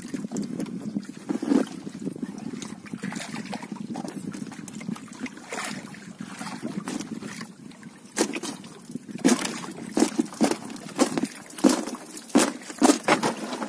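Water trickling and sloshing around a hauled bubo fish trap, then a run of sharp slaps and knocks from about the middle on.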